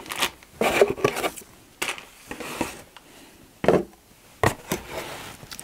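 Handling noises as a dive-tank-shaped watch box is lifted out of its cardboard carton: scattered knocks and brief rustling, with the loudest knock about three and a half seconds in as it is set down on a wooden table.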